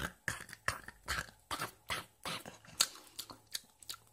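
M&M's candies being chewed, a crisp crunch about two to three times a second.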